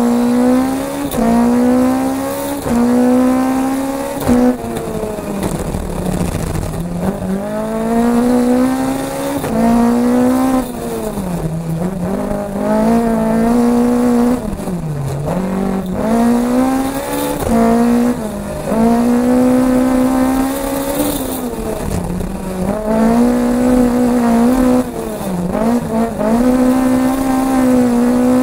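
Toyota Starlet rally car's engine, heard from inside the cabin, driven hard. Its pitch climbs and holds high, then dips sharply several times as the throttle is lifted and picked up again.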